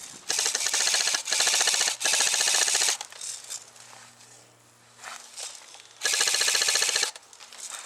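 Airsoft gun firing on full auto: three long bursts back to back in the first three seconds, then another about six seconds in.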